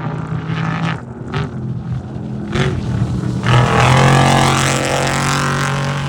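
Off-road race vehicle's engine running hard at speed, with a few short sharp spikes early on; about three and a half seconds in it grows much louder with a rushing noise as it passes close.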